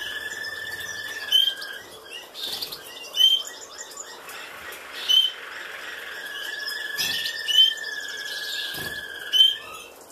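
Caged finches chirping: a sharp, loud chirp about every two seconds, with quicker, softer chatter in between. Under them a thin steady high tone runs for about a second and a half at the start and again for about three seconds near the end.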